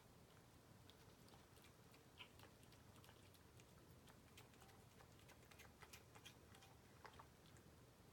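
Faint, irregular wet clicks and smacks of a cat chewing raw chicken.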